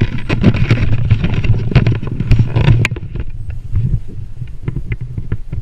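Rustling and scraping with a low rumble and many sharp clicks, busiest in the first three seconds: climbing rope and the Pulley Saver's metal pulley and retrieval hardware being handled and flicked against the trunk.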